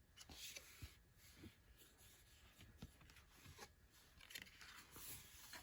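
Near silence with faint paper rustles and a few soft clicks and taps, from a picture book's pages or flaps being handled.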